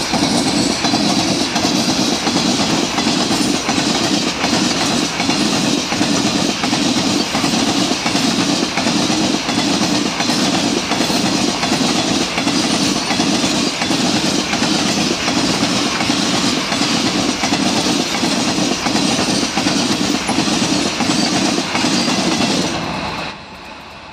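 Wagons of a long goods train rolling past close by, steel wheels clattering over the rail joints in a steady rhythm. Near the end the noise drops suddenly as the last wagon and brake van pass and move away.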